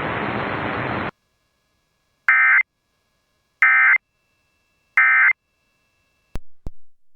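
Emergency Alert System end-of-message data code: three identical short bursts of digital data tones, about 1.3 s apart, marking the end of the alert. Before them a steady hiss cuts off about a second in, and two sharp clicks come near the end.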